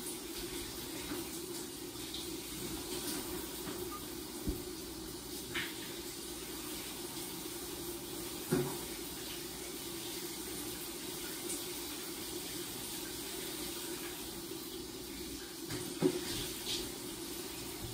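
Shower running steadily behind a glass door, with a few light knocks, the sharpest about eight and a half and sixteen seconds in.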